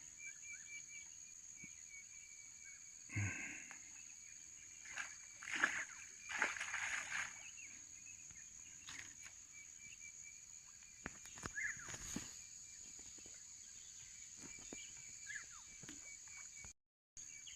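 Faint steady chirring of insects by the water, with a handful of brief splashes and rustles about three, six and twelve seconds in, as a hooked fish is played towards the bank.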